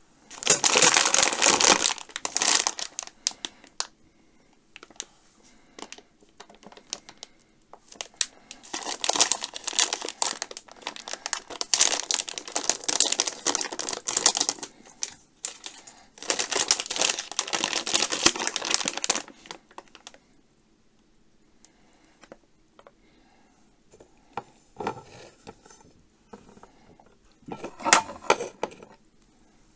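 Plastic gummy-candy bag crinkling as it is handled and pulled open. The rustling comes in several bouts of a few seconds each, with short quiet pauses between them.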